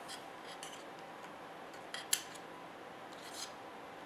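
Faint small metallic clicks and scrapes of a razor blade and a photoetch part being worked in a photoetch bending tool, with one sharper click about two seconds in.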